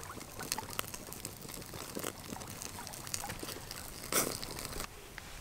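Skewered kokanee salmon sizzling over open coals and flames, the fat in the skin and meat spitting and crackling in many small pops. A brief louder rush of noise about four seconds in.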